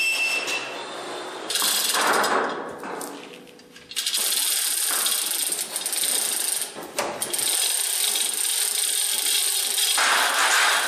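Hand chain hoist being hauled hand over hand to lift a steel water tank, its chain rattling steadily through the hoist from about four seconds in, with a brief pause a few seconds later. Before that, the heavy tank is shifted by hand, with scraping and knocking.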